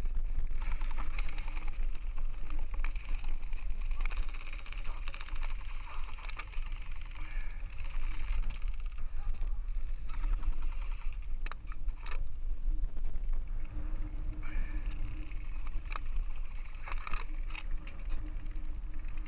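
Airsoft guns firing across an open field, heard as scattered sharp clicks and short rapid strings of shots, over a steady rumble of wind on the microphone.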